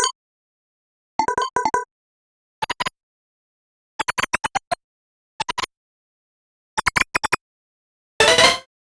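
Ableton Meld synthesizer preset playing short clusters of rapid, clicky staccato notes, with dead silence between them. A denser, noisier burst comes near the end.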